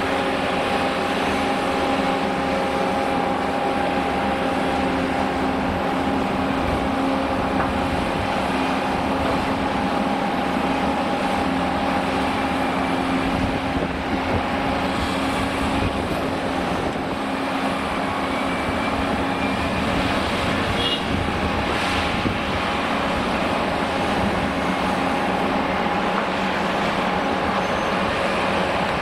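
Liebherr R980 SME front shovel's diesel engine and hydraulic system running steadily under load, with a constant whine, while it works the bucket. A single short knock comes about three-quarters of the way through.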